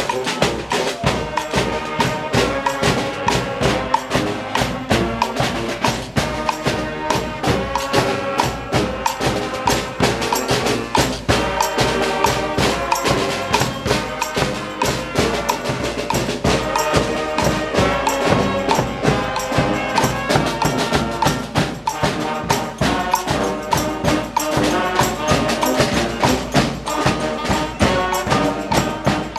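A street band of horns and drums playing a lively tune, with sustained horn lines over a steady, busy percussion beat.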